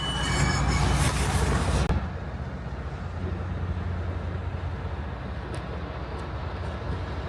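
Steady low outdoor rumble of city ambience, louder and hissier for about the first two seconds, then settling.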